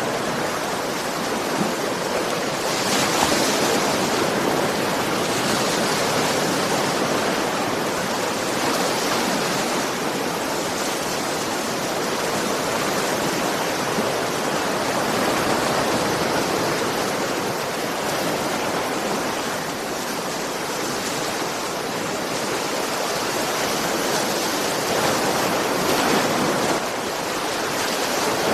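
Ocean surf: a steady rush of breaking waves, swelling a little about three seconds in and again near the end.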